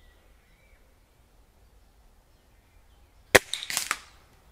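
A BSA Lightning XL SE gas-ram break-barrel air rifle fires once, a sharp crack about three and a half seconds in, followed within half a second by a few quieter cracks.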